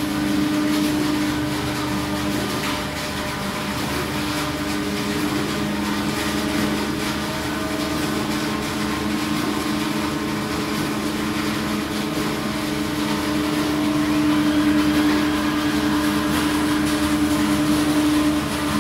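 Corrugated cardboard production line running: the conveyor and stacker machinery give a steady mechanical hum holding a couple of even tones under a noisy whir, a little louder near the end.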